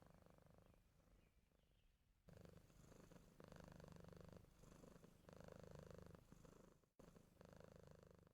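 Faint cat purring in slow, regular swells of about a second each, beginning about two seconds in.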